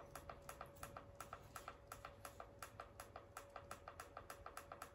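Quick, even run of faint clicks, several a second, from the plus button being pressed over and over on the Kinedyne HM-750L servo motor's control box keypad, stepping the parameter number up toward 26.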